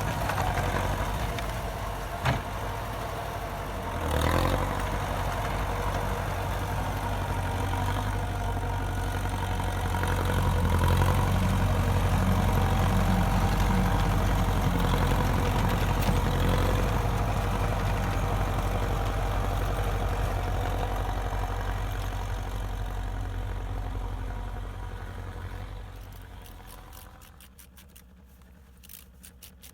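DT-75 crawler tractor's diesel engine running steadily. It grows louder through the middle and fades out near the end. A single sharp knock comes about two seconds in.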